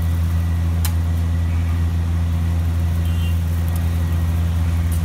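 A steady low hum, with a single sharp tap of a metal spatula against the iron griddle about a second in.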